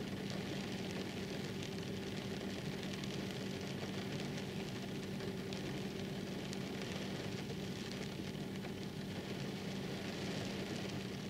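Steady rain hiss with scattered faint raindrop ticks, over a steady low hum.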